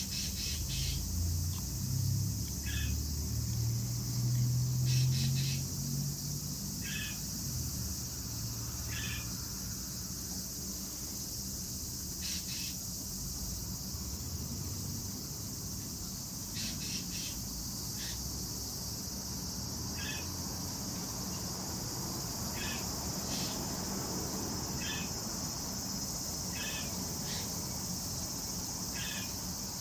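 Steady high-pitched chorus of crickets, with short chirps repeating every two seconds or so. A low rumble sits underneath for the first six seconds.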